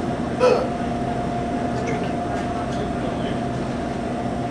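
Steady hum with a constant tone from a refrigerated soda vending machine running. About half a second in, a brief hiss and crackle as a plastic soda bottle's cap is twisted open.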